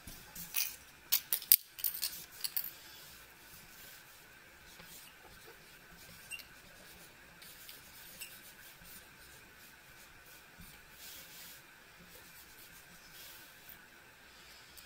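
A few sharp clicks and knocks as a paint marker is picked up and handled, then the faint scratch of a Uni-Paint PX-20 oil-based fine-tip paint marker writing on a paper sticker.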